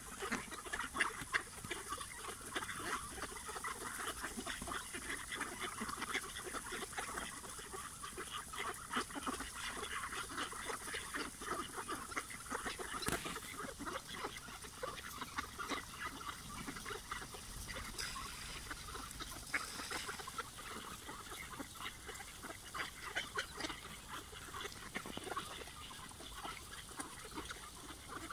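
A large flock of mallards feeding on the ground: a dense, steady chatter of soft quacks and rapid bill clicks as many ducks peck at once.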